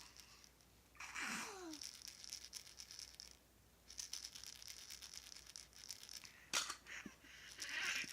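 A baby's rattle toy being shaken in bursts. A baby makes a short falling squeal about a second in, and there are two sharp knocks near the end.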